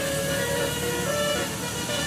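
Bus "telolet" Basuri multi-tone air horn playing a tune of held notes that step up and down in pitch, over engine and road noise.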